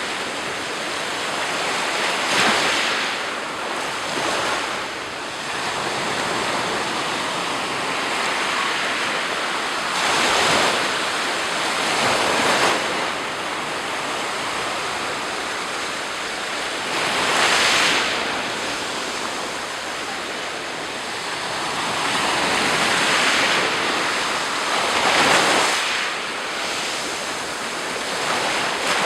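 Sea surf: waves breaking and washing up the shore one after another, a steady rushing hiss that swells with each wave every few seconds.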